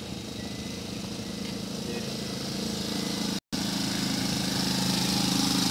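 A 250cc ATV quad bike's engine running as the bike comes closer, growing steadily louder. The sound drops out briefly a little past halfway.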